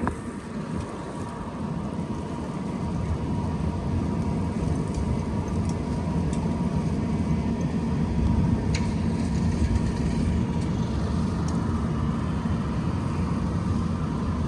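Low rumble of a large motor vehicle's engine, building over the first few seconds and then holding steady, with a few faint ticks.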